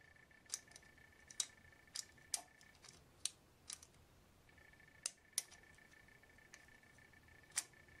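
Faint sharp clicks, a dozen or so at uneven intervals, over a thin steady high-pitched whine that drops out for a couple of seconds midway.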